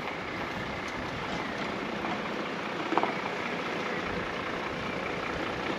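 Bus engine running steadily as the bus is driven slowly.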